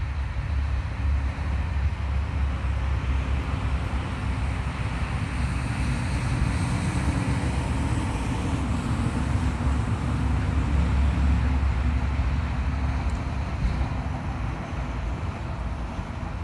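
Steady low outdoor rumble, rising a little in the middle and easing near the end.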